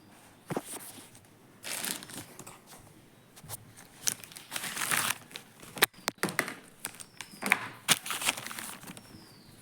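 Plastic packaging crinkling and tearing as a parcel is opened by hand, in several irregular bursts of rustling, with a sharp click about six seconds in.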